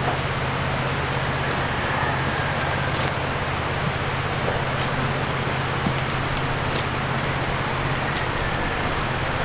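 A steady low motor-like hum with a hiss over it, unchanging throughout, with a few faint ticks.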